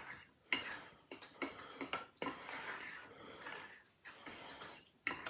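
Metal spoon scraping and clinking against a stainless steel mixing bowl while gently folding a thick, egg-yolk-based sauce, in repeated strokes with sharp clinks and short pauses between them.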